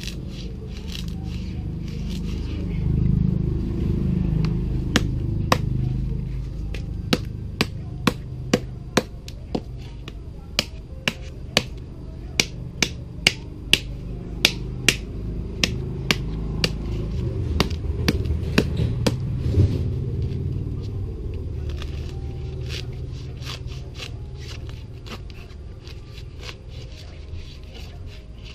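Sharp knocks of a large knife blade striking the shell of a husked mature coconut, about two a second for a stretch in the middle, as the shell is struck around its middle to crack it open. A low rumble runs underneath, swelling twice.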